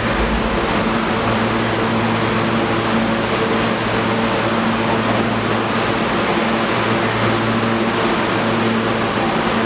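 A New York City subway train of R160-series cars standing at the platform: a steady, loud rushing noise with a low, even hum from its running air-conditioning and onboard equipment. A deeper hum joins about a second in.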